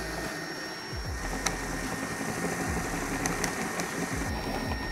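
Cordless drill with a 3/16-inch bit drilling the head off a rivet that holds a car's plastic rocker panel: a steady motor whine with a few sharp clicks as the bit bites.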